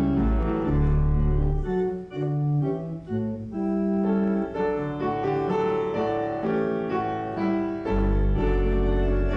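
Slow instrumental music on a keyboard instrument, held notes and chords. The low bass drops out about two seconds in, leaving a sustained melody in the middle and upper range, and comes back near the end.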